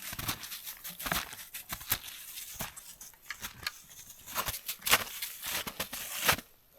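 Dry twigs and branches being snapped for campfire kindling: a run of irregular sharp cracks and crackles that stops abruptly just before the end.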